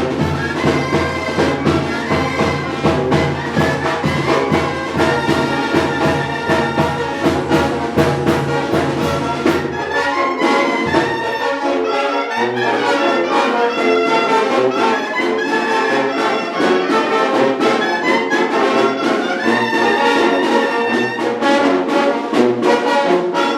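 A Mexican village brass band (banda de viento) playing: trumpets and trombones carry the tune over a steady drum beat. About ten seconds in, the heavy low bass drops out and lighter low notes continue under the horns.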